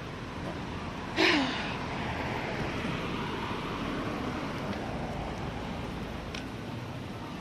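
Steady outdoor background noise with a short, loud, falling-pitched sound about a second in.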